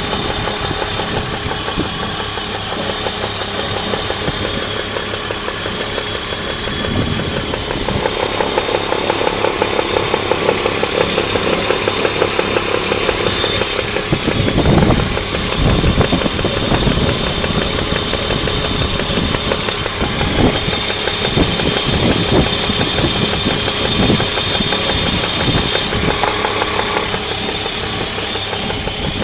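Alpina Roadster engine running with a rhythmic knock that grows louder about a third of the way in and is heaviest in the middle.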